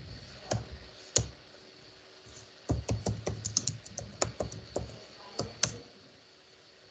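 Computer keyboard typing: two separate keystrokes in the first second or so, then a quick run of about a dozen keystrokes over some three seconds, the last being the Enter key that runs the command.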